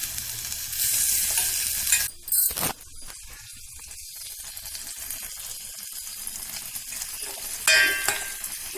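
A spoon stirring ground ginger with jaggery and ghee in a pan on a low gas flame, scraping the pan over a soft sizzle as the ghee begins to melt. There are a few sharper knocks of the spoon on the pan a little after two seconds, and after that the stirring and sizzle are quieter.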